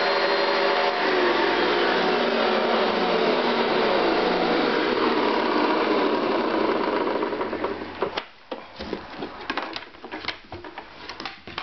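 1970s Hoover Convertible U4127 upright vacuum running in attachment mode, then its motor winding down with a falling whine after being switched off, dying out about eight seconds in. A few clicks and knocks follow near the end.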